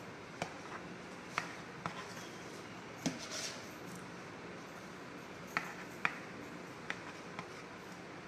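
Metal palette knife frosting a whipped-cream cake on a turntable: about eight sharp taps and clicks at irregular intervals as the blade knocks against the turntable and cake edge, over a faint steady hiss.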